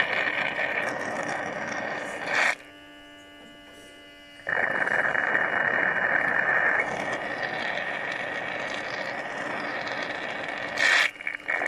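A home-made electric suction device sucks stingless bee honey out of the wax honey pots through a thin tube, with a steady rushing hiss of air and honey drawn up the tube. About two and a half seconds in the rush cuts out for two seconds, leaving only a faint steady hum. A brief louder gurgle comes near the end.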